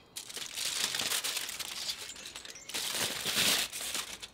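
Aluminium kitchen foil crinkling and rustling as it is unwrapped and pulled off a joint of meat, in two spells with a short lull a little past halfway.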